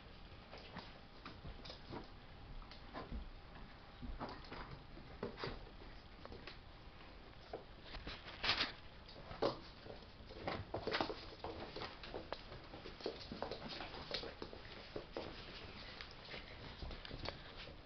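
Tibetan terrier puppies play-fighting with an adult dog on a blanket-covered sofa: irregular scuffling, pattering and scrabbling of paws on fabric, with a few soft puppy whines. The sharpest scuffles come about halfway through.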